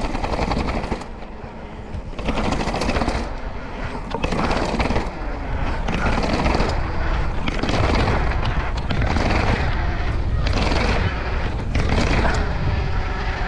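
Bicycle rolling fast over stone paving slabs, its tyres and frame rattling and clattering over the joints in repeated rough bursts, with wind rumbling on the microphone.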